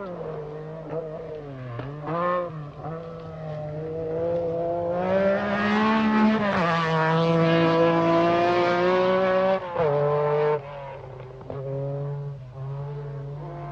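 MG Metro 6R4 rally car's three-litre V6 engine at full throttle on a gravel stage, the note rising and holding high and loud for several seconds in the middle, then dropping sharply as the driver shifts or lifts, with a few more shifts near the end.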